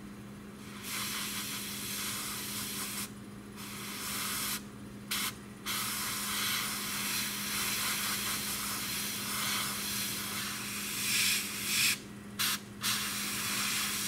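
Airbrush spraying paint: a steady hiss of air that cuts out briefly about five times as the trigger is let off and pressed again, over a steady low hum.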